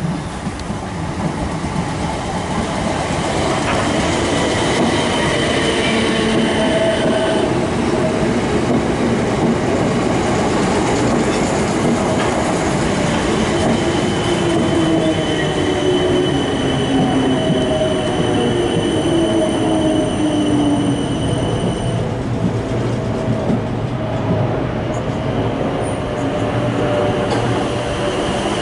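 Class 455 electric multiple unit running through the platform and slowing, its electric whine falling steadily in pitch under a continuous rumble and clatter of wheels on rails. High-pitched wheel and brake squeal rings out over it for several seconds in the second half.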